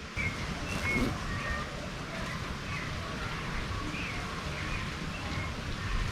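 Birds chirping, many short calls overlapping in quick succession, over a low steady rumble.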